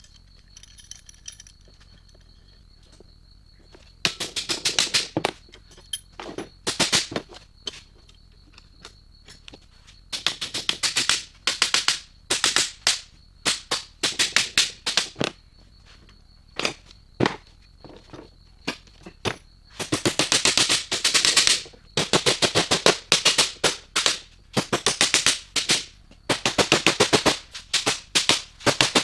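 Impact wrench run in repeated bursts of rapid hammering, each a second or two long, tightening fasteners on a leaf spring assembly.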